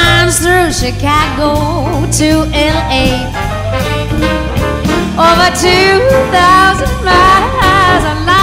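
Swing-style background music with a singing voice.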